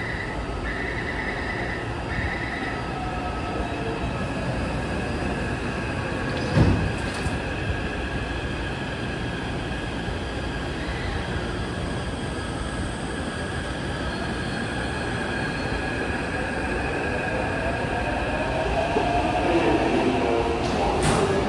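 Taipei Metro C371 train at a platform. In the first couple of seconds the door-closing warning beeps sound in short bursts, and a single thump comes about six and a half seconds in. Then the train's electric traction motors whine over a steady rumble of wheels on rail, and the sound grows louder with gliding motor tones as a train runs in near the end.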